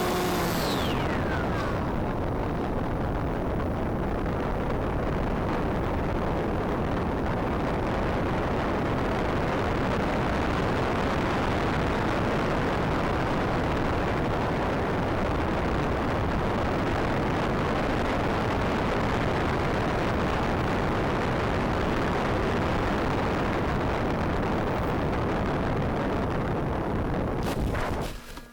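Steady wind rumble and rush over a microphone. At the start, a whine like that of an electric motor falls in pitch and fades out. The noise cuts off suddenly near the end.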